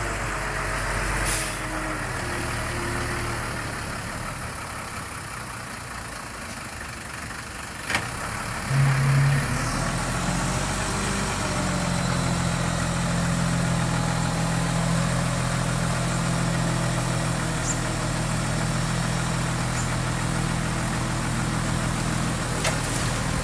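Heavy diesel engine of a construction machine running steadily. A sharp click comes about eight seconds in, and then the engine runs louder with a steady low hum.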